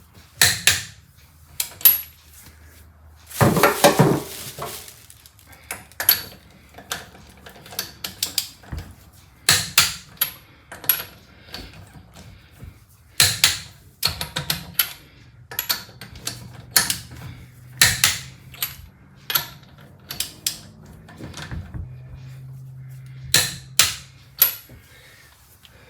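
Irregular metallic clinks and knocks of lug nuts, sockets and tools being handled while a wheel's lug nuts are refitted, with one denser, longer clatter of about a second a few seconds in.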